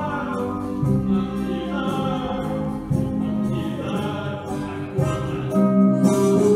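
A song with singing over instrumental accompaniment.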